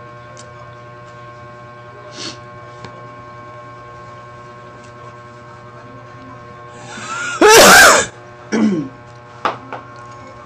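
A person sneezes very loudly about seven seconds in, with a short rising build just before it. The sneeze is followed by a shorter vocal sound falling in pitch about a second later and a brief sharp sound near the end.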